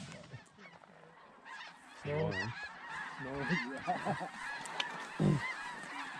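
A flock of geese honking as they fly over, many faint calls overlapping with a few louder honks scattered through.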